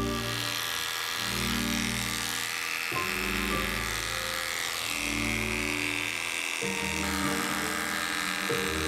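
Cordless electric dog clipper buzzing steadily as its blade shaves through thick matted fur.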